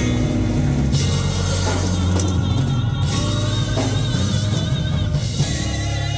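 Instrumental music with a drum kit, a steady bass line and held chords with a wavering high tone.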